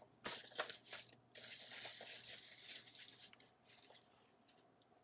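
Keyboard packaging being handled and unwrapped, rustling and tearing in two long rustles, then a few light taps and rustles as it dies down.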